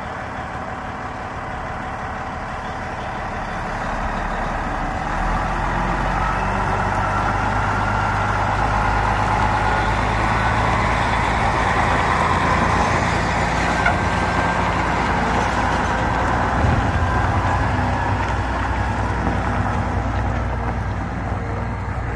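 International 9100 grain truck's diesel engine running steadily, getting louder from about five seconds in as the truck pulls away.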